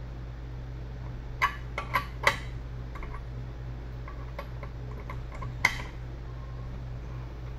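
Metal parts of a hub and spindle assembly clinking as they are handled: four sharp, ringing clinks close together about a second and a half in, lighter ticks after, and one more sharp clink near the end. A steady low hum runs underneath.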